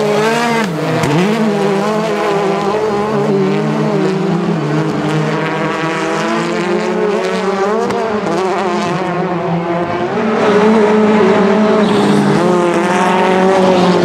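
Peugeot 208 T16 R5 rally car's turbocharged 1.6-litre four-cylinder engine revving hard, its pitch rising and falling again and again through gear changes as it is driven flat out. It gets louder from about ten seconds in, as the car heads up the dirt ramp.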